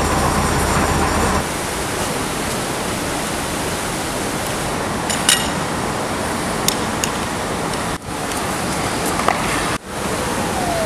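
Steady rushing hiss of water jetting from fire hoses fed by a fire engine's pump. A low engine hum from the fire engine runs under it for the first second and a half, and there are a few sharp clicks in the middle.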